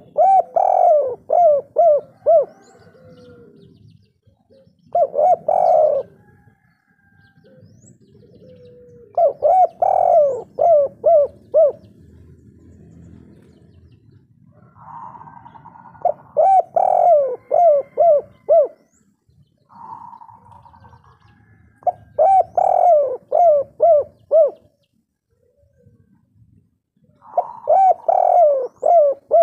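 Spotted dove of the 'kuk 3' type cooing in six repeated phrases, each a quick run of several coo notes, with pauses of a few seconds between them.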